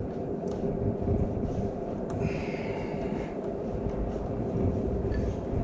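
Steady low hum in a workshop, with a few light clicks and a brief scrape as a motorcycle exhaust muffler is handled and lined up on its hanger bracket.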